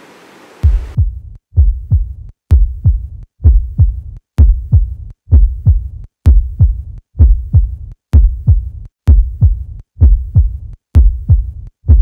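Heartbeat sound effect: a slow, steady lub-dub double thump about once a second, a little over a dozen beats. A faint hiss of outdoor ambience cuts off about a second in, just before the first beat.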